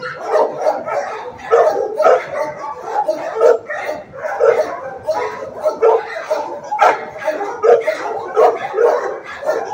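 Several kennelled shelter dogs barking without let-up, a couple of barks a second.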